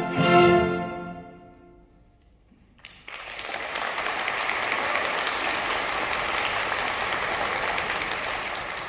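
Orchestra with solo bassoon holding its final chord, which breaks off about half a second in and rings away in the hall. After a brief hush, audience applause starts about three seconds in, steady and then fading near the end.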